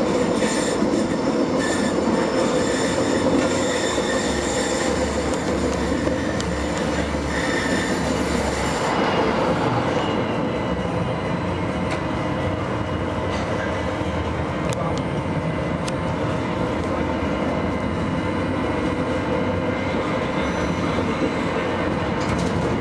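Tram running along its track, heard from inside at the front: steady rolling and running noise. A set of high-pitched tones rides over it and stops about nine seconds in.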